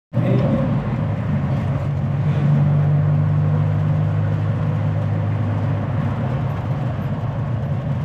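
Motor vehicle on the road: a steady low engine hum with road noise, cutting in suddenly at the start.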